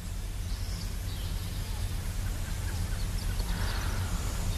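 Quiet outdoor background ambience: a steady low hum with a few faint, short bird calls.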